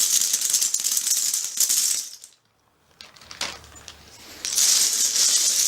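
A pile of loose Finfolk Mythic mermaid-tail scales clattering together as they are tipped and stirred, a dense jingling like coins or poker chips. It stops in the middle and starts up again about a second before the end.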